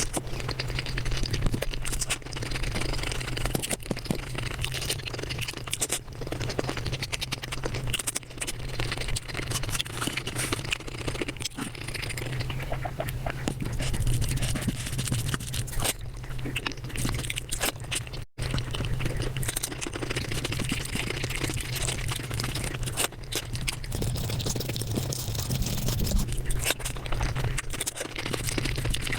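Close-miked eating sounds sped up to a rapid chatter: dense chewing, smacking and crunching with a steady low hum underneath. There is a brief dropout about two-thirds of the way through.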